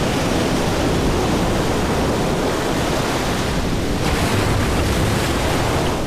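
Heavy sea surf: waves breaking and churning on a rocky shore, a steady, loud rushing wash of water.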